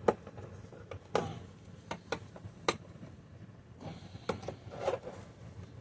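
Scattered sharp clicks and knocks, about seven at irregular intervals, from handling the headlight cap and lens of a 2004 Panasonic upright vacuum.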